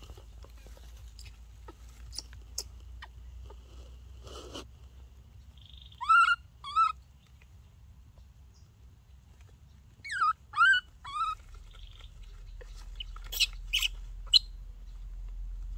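Baby monkey giving short, high cries that each rise and then fall in pitch: two about six seconds in and a run of three about ten seconds in. A few sharp clicks come near the end.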